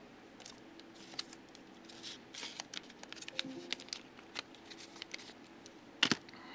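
Small clicks and plastic rustles of packs of screwdriver bits being handled and opened on a table, with one sharper click near the end.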